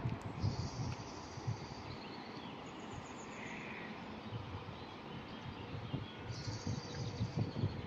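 Small birds singing high, quick trills, twice, over gusts of wind on the microphone.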